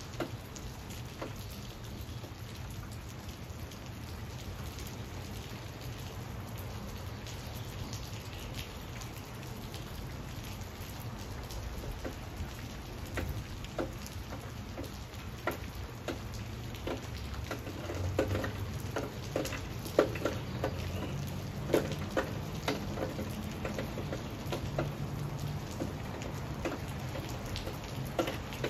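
Rain falling on leaves and a hard ledge: a steady patter with single drops ticking, the drops coming heavier and more often in the second half, with a low rumble underneath.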